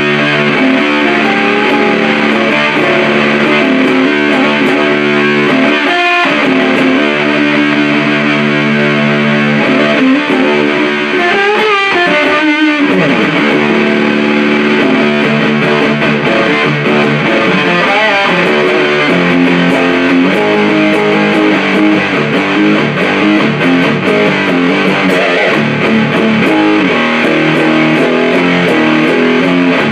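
Electric guitar played through a Supercoolpedals 77 Fuzz Blender turned all the way up, into an Orange Super Crush 100 amp: heavily fuzzed, sustained chords and riffs, with a couple of pitch bends or slides about twelve seconds in, then faster changing riffs.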